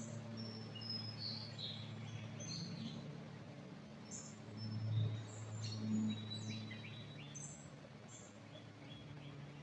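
Songbirds chirping and whistling, many short high calls scattered throughout, over a steady low hum that swells briefly about halfway through.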